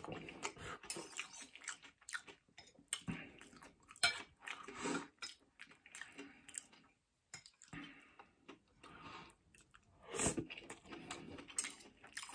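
A person chewing a mouthful of takeaway noodles close to the microphone, with irregular wet mouth smacks that come louder around four seconds in and again near ten seconds.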